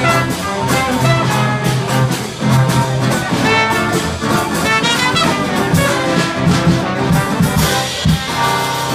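Live funk band playing, led by a trumpet and trombone horn line over the rest of the band.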